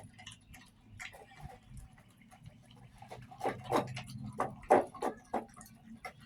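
Pit bull eating from a bowl: irregular short chewing and smacking sounds, busiest from about three to five and a half seconds in.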